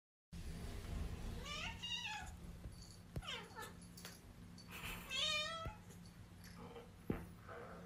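Kitten mewing: a series of short, high, wavering calls, the loudest about five seconds in, with fainter mews near the end, over a steady low hum.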